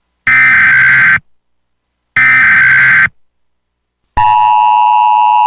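Emergency Alert System SAME header: two bursts of digital data tones, each about a second long and about two seconds apart. About four seconds in, the steady two-tone EAS attention signal begins and holds.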